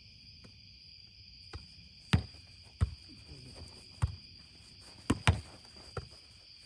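A boardball ball being struck by hands and bouncing off the board in a rally: about half a dozen sharp smacks from about two seconds in, two in quick succession near the end. Crickets chirp steadily underneath.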